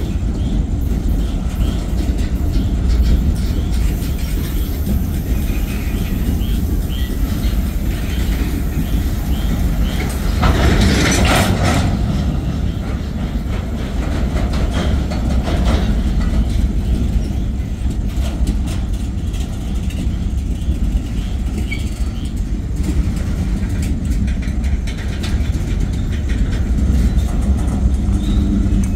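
Freight train's covered hopper cars rolling past, a steady low rumble with wheels clicking over the rail joints. About a third of the way through there is a brief louder rush of noise.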